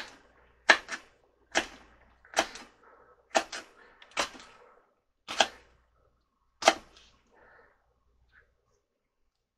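Knife chopping vegetables on a wooden cutting board: eight sharp chops about a second apart, stopping about seven seconds in.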